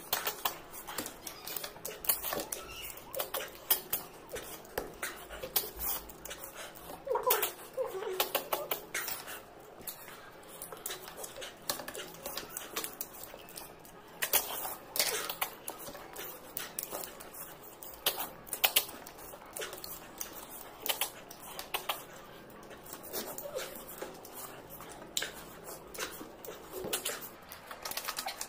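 Close eating sounds from a mukbang of snails and vegetables: chewing, lip smacking and sucking, with many sharp irregular clicks. There are a few short pitched squeaky sounds about 7 and 15 seconds in.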